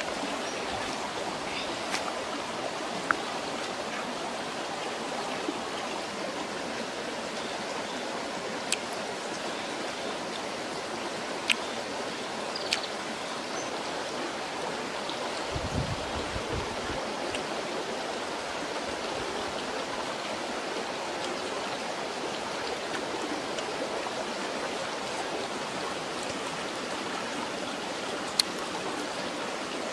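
Steady rushing of a flowing stream, with a few sharp clicks scattered through and a low rumble lasting about a second and a half near the middle.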